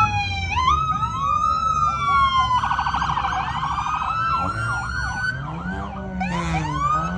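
Several vehicle sirens sound together, their wailing tones rising and falling and crossing over one another. A rapid warble lasts about a second, around three seconds in.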